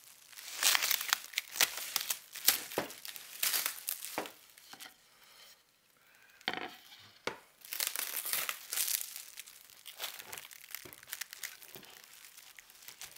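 Clear plastic wrap being pulled, torn and crumpled off a stack of MDF panels, crinkling in irregular handfuls, with a short lull about halfway through.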